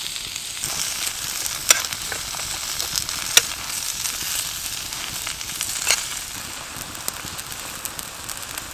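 Sliced vegetables frying in coconut oil over a wood fire: a steady sizzle with a few sharp pops, the loudest about three and a half seconds in.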